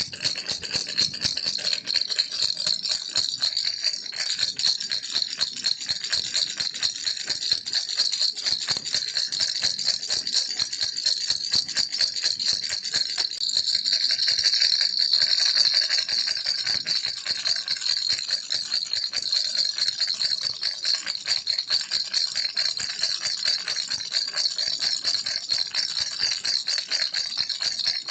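Baby rattle shaken continuously, a dense rapid rattling of small beads or pellets inside a toy rattle.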